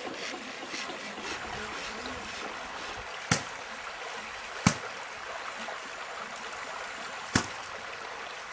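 Shallow stream running over rocks, with three sharp slaps as a bundle of long grass is swung overhead and beaten down against the stones in the water, about three, four and a half and seven seconds in.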